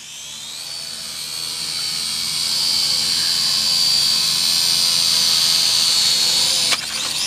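Small quadcopter drone's propellers spinning up at launch: a high whine that rises in pitch and loudness over the first couple of seconds, then holds steady while it hovers. The whine drops abruptly near the end.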